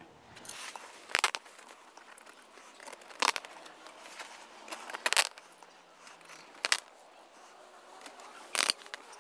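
Handling noise as the bolts of a flashing kit's steel ring are pushed through holes in a canvas tent's stove jack: light rustling of canvas and about five sharp clicks, a second or two apart.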